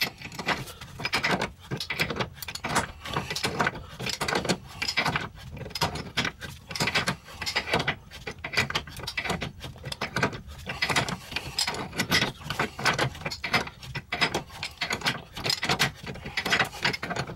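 Pipe wrench spinning the large staked retaining nut off a lower ball joint: a steady run of rapid, irregular metal clicks and scrapes as the wrench jaws grip and slide on the nut stroke after stroke.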